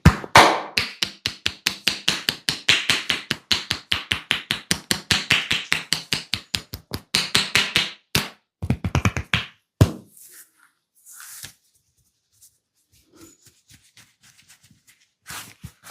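Hands tapping rapidly on a head in a percussive barber's head massage, several quick strikes a second. The tapping stops about eight seconds in, a shorter run follows, then only a few faint touches.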